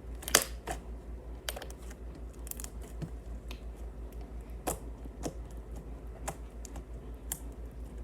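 Over-activated pink bubblegum slime being squished and pulled by hand, giving irregular sticky clicks and pops, the sharpest about a third of a second in.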